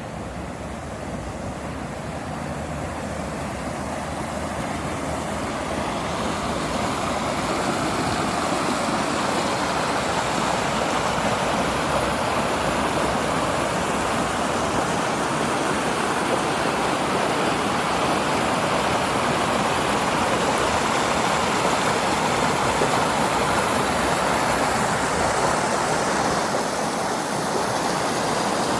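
Running water, a park stream or small falls, rushing steadily; it grows louder over the first several seconds, then holds.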